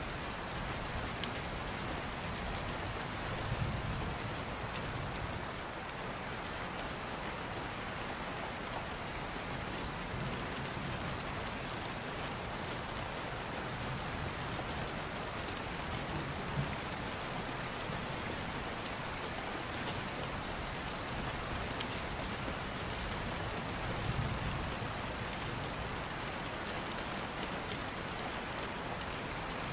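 Steady rain falling, an even hiss with a low rumble swelling twice, about four seconds in and again about twenty-four seconds in.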